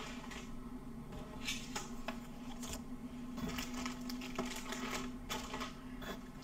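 Plastic snack wrappers crinkling in short, irregular rustles as packets are lifted out of a cardboard box and set down on a table.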